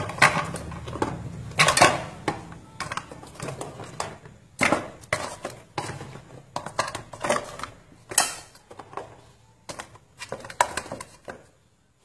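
Large freshwater mussel shells clacking against each other and against a metal pot as they are packed in by hand: a run of irregular knocks and clicks.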